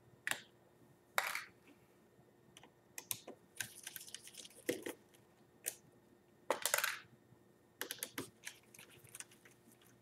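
Scattered small clicks, taps and short scrapes of a precision screwdriver and small screws being worked at the hard-drive bay of an opened tablet. The sounds come irregularly, with a longer scrape about a second in and another near the middle, and a quick run of clicks toward the end.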